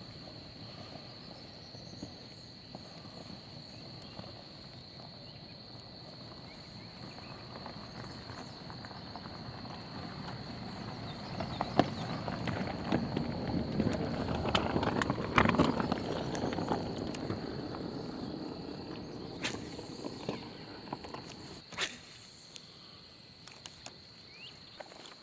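Insects droning steadily at one high pitch. In the middle stretch a louder rustling with scattered clicks rises and fades.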